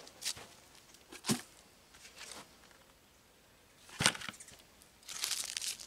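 A few scattered soft knocks and clicks from handling, the firmest about four seconds in, as a bucket of wood chips and a pile of dry grass clippings are set down beside a planter. A dry rustling follows near the end.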